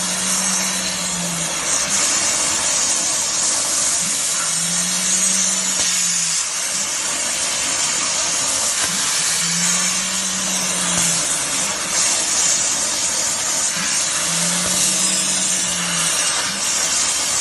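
CNC plasma cutter torch cutting square steel tube: the plasma arc makes a steady, loud hiss. Under it a low hum comes and goes four times, about every five seconds.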